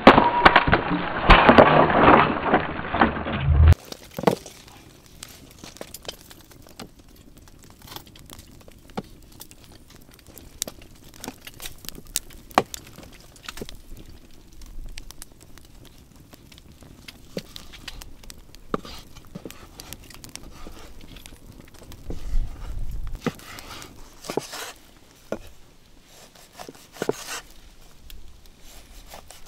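An axe splitting firewood on a chopping block, loud for the first few seconds and then cut off suddenly. After that, a cleaver chopping raw meat on a wooden cutting board gives scattered sharp knocks over a faint campfire crackle.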